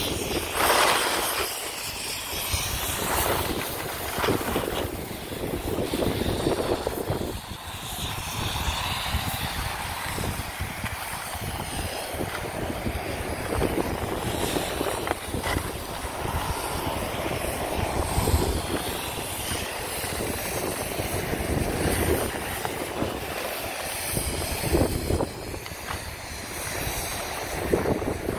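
Skis scraping and hissing over groomed snow during a downhill run, with wind buffeting the microphone as a low rumble that swells and eases.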